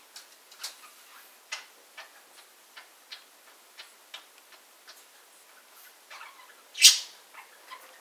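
A pair of budgerigars making soft, irregular clicks and ticks, a few a second, with one much louder, sharp chirp about seven seconds in.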